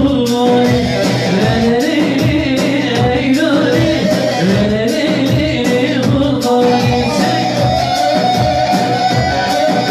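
Amplified Turkish halay dance music through a PA loudspeaker: a man's singing voice over a steady, driving beat and melody.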